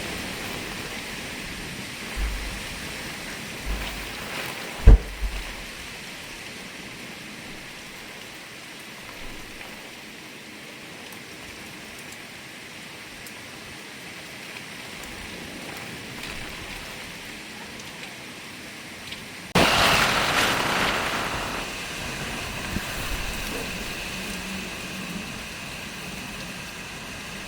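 Heavy rain and wind of a category 5 hurricane rushing steadily, with a loud thump about five seconds in and a sudden, louder surge of rain and wind about twenty seconds in that slowly eases.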